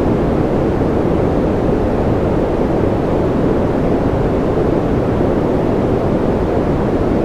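Steady, even rushing noise from a sleep-noise track, deep and muffled, with no drops, ticks or changes.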